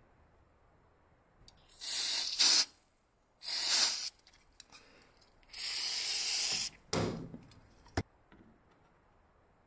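Aerosol spray can hissing in three short bursts, the last one longer, followed by a dull knock and a sharp click near the end.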